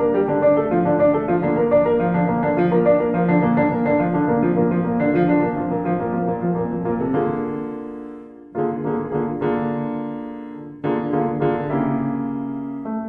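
Background piano music: a busy run of notes, then a few held chords, each struck and left to fade.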